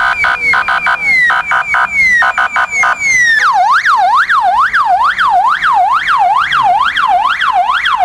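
Police car's electronic siren. It first sounds short falling sweeps broken up by rapid chirps, then switches a little over three seconds in to a fast yelp that rises and falls about twice a second.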